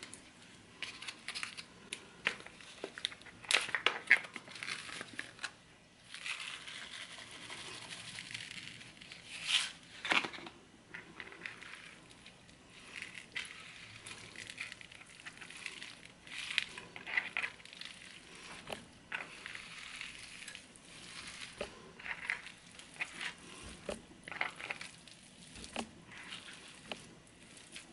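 Hands working ground elk meat on a plastic cutting board: a seasoning pouch handled and the meat squeezed, mixed and pressed around wooden skewers. It makes a run of irregular small crackles and rustles, with a few louder ones about four seconds in and again about ten seconds in.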